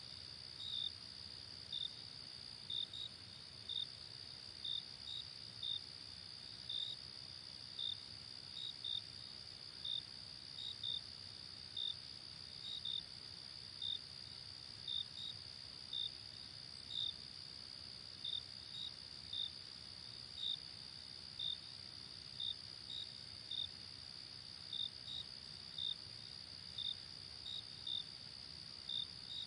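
Insects chirping: a steady high-pitched trill with short, sharp chirps over it, repeating irregularly about once or twice a second.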